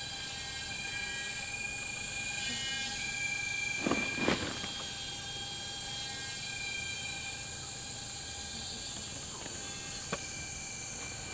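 A steady high-pitched drone and hiss with a few faint steady tones under it, broken by two short knocks about four seconds in and a single click near the end.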